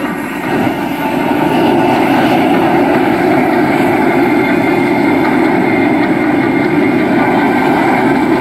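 Several F-16 Fighting Falcon jet engines running together after a group start, a steady rush of noise with high turbine whine over it. It grows louder about half a second in, then holds steady.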